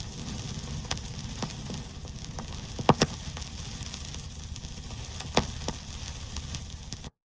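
Vinyl record surface noise: a steady hiss and low rumble full of small crackles, with a few louder pops about three seconds in and again at about five and a half seconds. It cuts off suddenly near the end.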